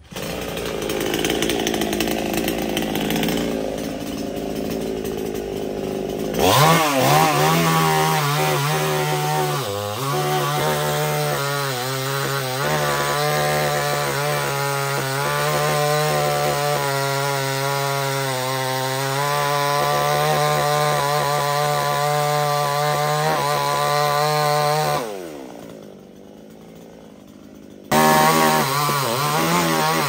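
Two-stroke petrol chainsaw cutting into a jackfruit trunk. After a few seconds of rough noise, the saw revs up to full throttle and holds a steady pitch in the cut. About 25 s in the revs fall away and it goes quiet for a few seconds, then it snaps back to full throttle near the end.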